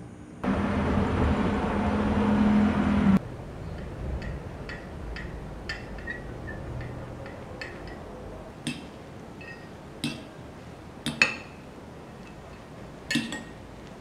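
For about three seconds a passing vehicle's steady hum and road noise grow louder, then cut off abruptly. After that a metal fork clinks now and then against a ceramic bowl while tossing boiled rice vermicelli with sweet soy sauce and oil, with the sharpest clinks near the end.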